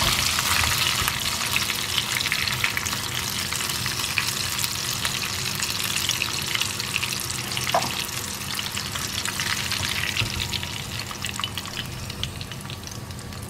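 Flour-battered chicken pieces deep-frying in hot oil in an iron kadai: a steady crackling sizzle that dies down near the end as the pieces are lifted out.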